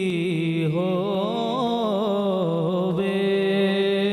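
A man's voice singing a naat unaccompanied, drawing out a vowel with wavering, sliding melismatic runs, then settling on a steady held note about three seconds in.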